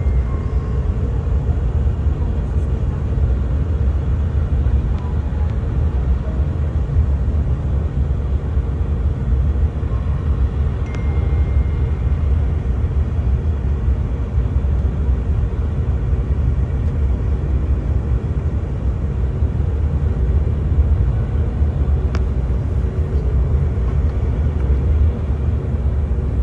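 Steady in-flight rumble of an Air Nostrum CRJ-1000 regional jet on approach: engine and airflow noise, with a short high tone about eleven seconds in.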